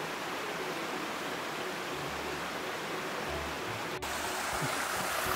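Steady rushing of a mountain stream. It grows louder and brighter after a cut about four seconds in, close to the water at a stream crossing.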